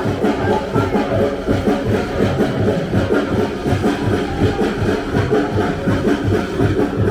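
Live drumming: a steady, fast drum beat of about three to four beats a second.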